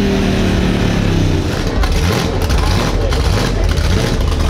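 A truck engine falling back in pitch after a rev, fading over the first second into a steady low exhaust rumble.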